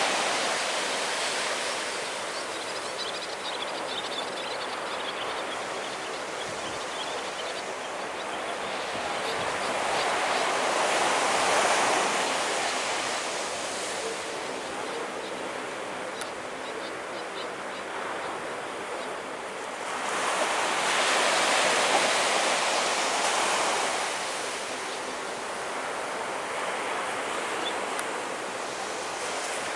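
Surf washing onto the beach, swelling up twice, with a faint steady hum underneath.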